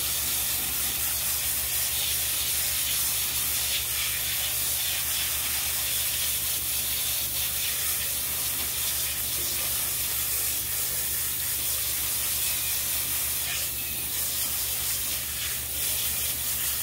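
Garden hose spray nozzle jetting a steady stream of water onto an aquarium filter pad, splashing through it as the algae and dirt are rinsed out.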